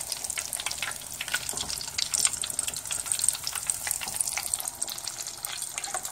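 Hot oil sizzling and crackling steadily in a saucepan as arancini (rice balls) deep-fry, a dense patter of tiny pops.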